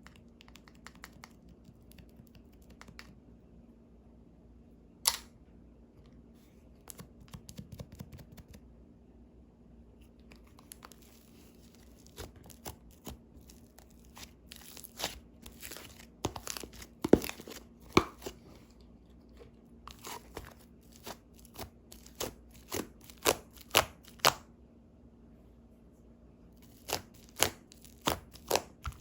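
Sticky clay slime worked by hand: a series of sharp wet snaps, pops and crackles as it is pressed and pulled apart, sparse at first and coming thick and fast in the second half.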